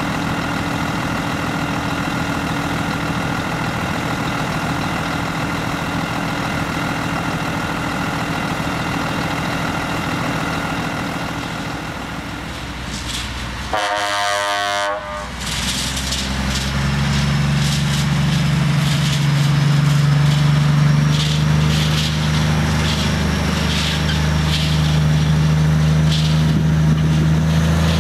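Scania T500 V8 truck engine running steadily, then a horn blast lasting about a second midway. After the horn the V8 runs louder with a lower steady note as the truck drives up.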